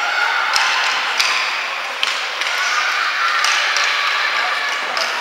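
Ice hockey rink during a children's game: steady scraping hiss of skates on the ice, with several sharp clacks of sticks and puck and faint voices in the background.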